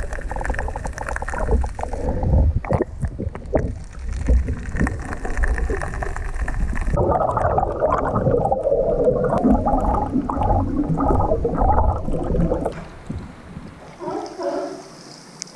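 Underwater recording among California sea lions: a low rumble of water moving against the camera, with clicks. From about seven seconds in, the sea lions call underwater, a run of broken, pitched grunts amid bubbling. Near the end, with the camera at the surface, sea lions bark from the rocks.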